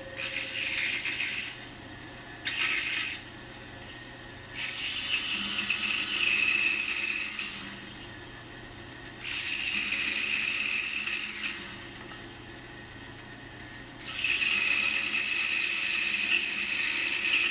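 Pegas scroll saw running steadily, its blade cutting wood in five separate passes: each cut is a loud, high rasp, the longest near the end, with the saw's quieter motor hum in between.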